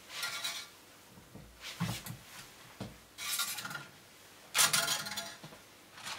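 Parts of a briefcase 3D printer's Z-axis frame being handled and fitted onto its baseboard: several short bursts of rattling, scraping and knocking of metal rods and plastic parts. The loudest clatter comes about three quarters of the way through.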